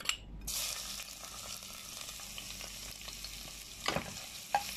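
Minced garlic sizzling in hot cooking oil in a pot as it is sautéed. The sizzle starts suddenly about half a second in, and a spoon knocks against the pot a couple of times near the end.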